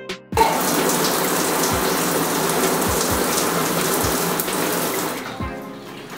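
Shower spray running onto the scalp and braids, rinsing out an apple cider vinegar rinse. The spray starts suddenly about half a second in, runs steadily, and fades away near the end.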